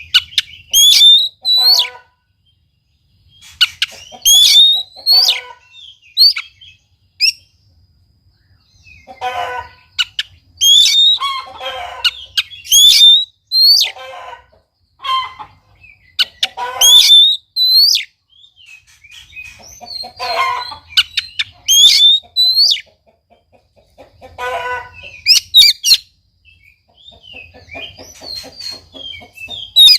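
Oriental magpie-robin (kacer) singing loud phrases of a second or two each, every couple of seconds, mixing sweeping whistles with harsher chattering notes.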